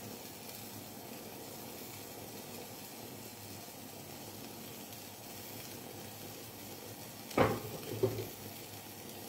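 Pizza base gently sizzling in olive oil in a non-stick frying pan over a low gas flame: a steady soft hiss. Two brief, louder knocks near the end.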